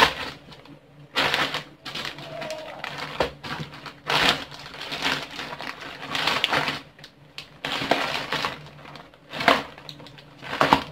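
Clear plastic bags, one of them a zip-lock bag, crinkling and rustling in repeated bursts as they are handled and pulled open.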